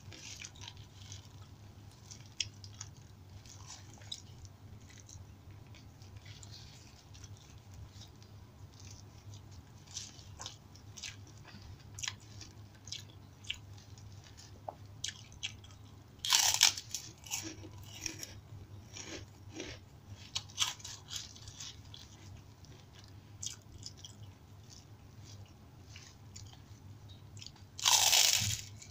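Close eating sounds: steady chewing with small mouth clicks, and two bouts of loud crunching, about halfway through and at the very end, as a crisp kerupuk cracker is bitten into.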